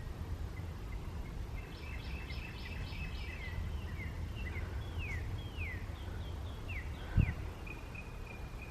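A songbird calling: a run of quick repeated notes, then several clear whistled notes that fall in pitch, then a short trill near the end. Under it is a steady low rumble of wind on the microphone, with one dull thump about seven seconds in.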